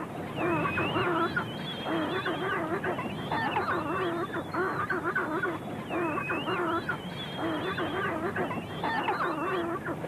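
Male chinstrap penguin giving its ecstatic display mating call: a long series of rhythmic, braying honks in several phrases with short breaks, which sounds triumphant.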